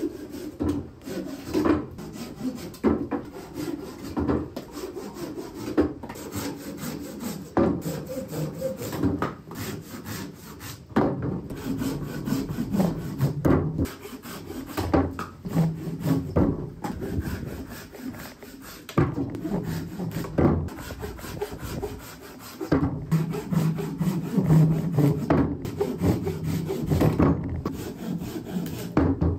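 Hand saw cutting through a dead tree limb braced on a wooden table, with repeated back-and-forth strokes.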